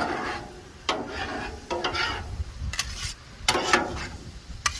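Spatula scraping and tapping across a flat-top steel griddle about once a second, stirring a sizzling mixture of onions, honey and bourbon that is cooking down and thickening.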